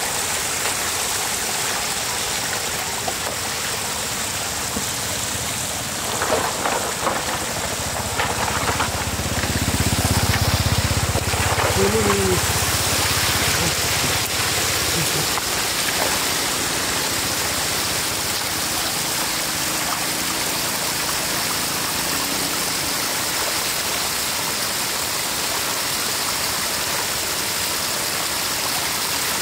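Floodwater spilling over the edge of a flooded road in a thin sheet, a steady rushing splash of falling water. A few sharper splashes or knocks come about a quarter of the way in, and a low rumble swells for several seconds around the middle.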